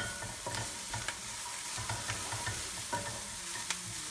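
Food sizzling in hot oil in a wok as it is stir-fried, a steady hiss broken by a few sharp clicks.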